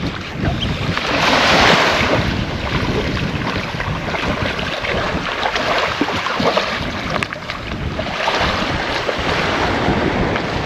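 Wind blowing on the microphone over small waves washing onto a sandy shore; the wash swells about a second in and again near the end.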